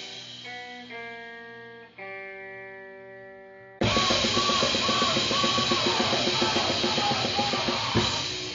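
Grind/noise music. Held, ringing guitar notes play first. About four seconds in, a sudden loud wall of distorted guitar, drums and noise cuts in.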